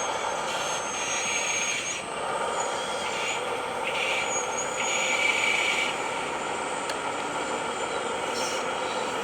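Radio-controlled scale construction machines running: a steady mechanical whine from their small drive motors and gearing, with thin high squeals that glide and come and go.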